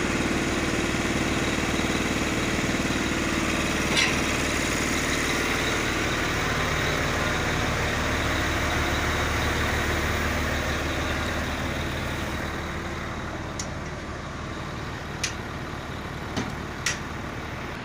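Heavy truck's diesel engine idling steadily, growing somewhat quieter after about twelve seconds, with a few short clicks on top.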